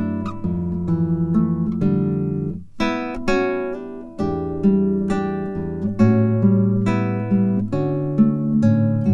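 Background music: acoustic guitar playing plucked and strummed chords with a moving bass line.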